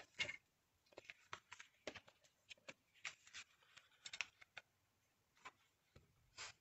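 Faint, scattered rustles and light taps of card stock and paper being handled and positioned on a paper trimmer.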